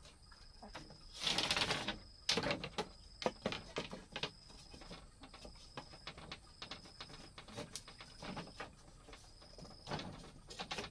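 Irregular light knocks and taps, with a brief rustling swish about a second in; a faint high thin tone comes and goes behind them.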